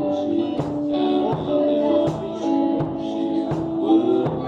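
Live rock band playing: electric guitars and bass guitar holding long sustained notes over drum hits.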